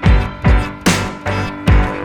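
Music with a steady, fast drum beat, a low kick roughly every 0.4 seconds, under sustained pitched instruments.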